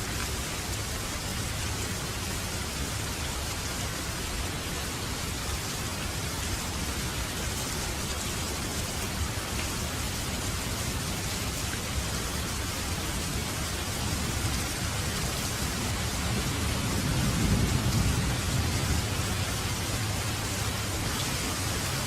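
Steady rain hissing, with a low rumble of distant thunder that swells and fades over a few seconds past the middle.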